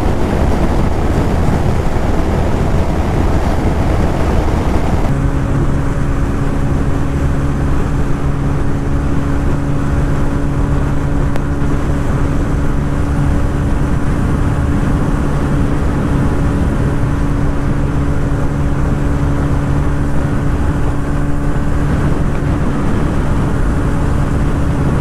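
Motorcycles held flat out at top speed, heard from on board with heavy wind blast. For about the first five seconds a wind rush dominates; then the TVS Ronin 225's single-cylinder engine drones at one steady pitch under the wind, holding about 129 km/h at its top speed.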